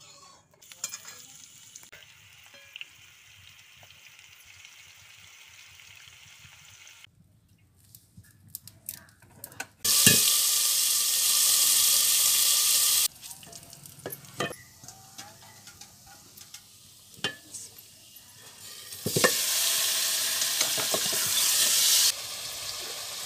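Chopped onions sizzling loudly as they fry in hot oil in a kadai, in two spells, the first starting suddenly about ten seconds in. Between the spells a spatula scrapes and knocks against the pan.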